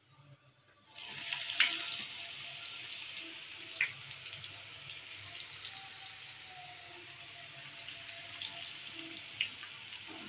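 Sliced onions deep-frying in hot oil: a steady sizzle that starts about a second in, with a few sharp crackles and pops.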